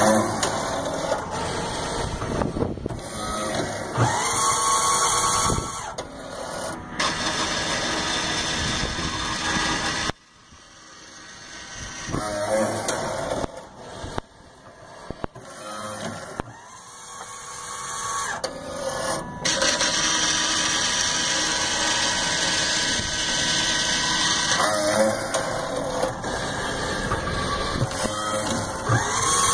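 Schwan/AE AFD-280E automatic fry dispenser cycling through its exercise mode: its small gear motors whir in repeated runs that start and stop, with a rising whine each time a motor spins up. The sound drops off suddenly about a third of the way through and builds back up before running loudly again.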